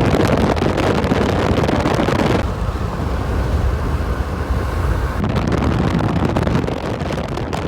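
Strong wind buffeting the microphone: a loud, dense rushing noise heaviest in the low end, starting suddenly and shifting in character abruptly about two and a half and again about five seconds in.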